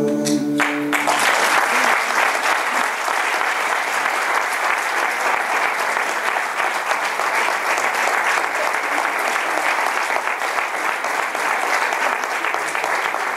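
A group's last sung note cuts off about a second in, and an audience breaks into steady applause.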